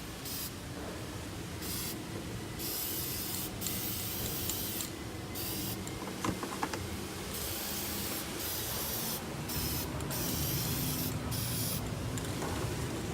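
Aerosol can of gray primer spraying in many short bursts, a hiss that stops and starts again every second or so as the pipework is painted.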